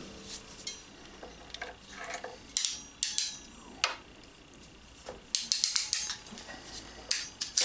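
Ratcheting wire crimper clicking through its ratchet as a connector is crimped onto a wire, with a quick run of clicks about five seconds in. Scattered single clicks of plastic parts being handled.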